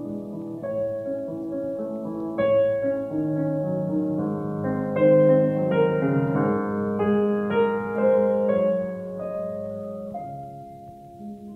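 Background piano music: slow, sustained notes and chords. It softens and thins out near the end.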